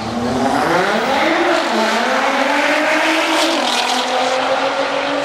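Two Nissan GT-Rs launching hard off the drag strip start line. The engine note climbs in pitch and drops back at each upshift, twice, then holds steady as the cars run down the track.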